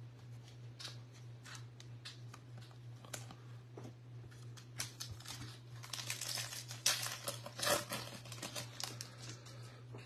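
Light clicks of trading cards being handled, then a baseball card pack's wrapper crinkling as it is torn open, a dense crackle for a few seconds past the middle.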